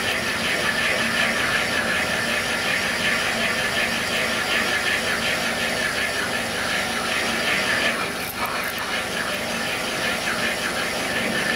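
A seat-and-guide machine spins a homemade cutter on a pilot, cutting a valve spring seat deeper into a Honda B20's aluminium cylinder head. It gives a steady high-pitched cutting chatter over the machine's low motor hum. The cutting briefly drops off about eight seconds in, then resumes.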